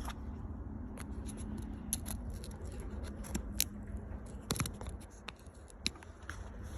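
Screwdriver scraping and clicking against the collar on a truck's steering column as it is pried loose: a string of small, irregular clicks.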